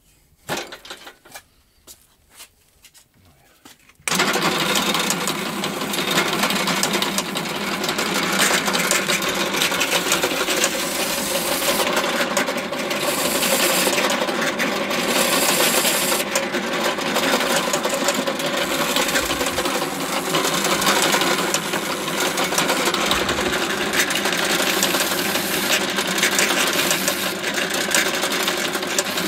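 A few faint handling clicks, then about four seconds in a benchtop drill press starts up and runs steadily with a constant motor hum. Its countersink bit is cutting countersinks for the wing-mounting screws into a model glider wing.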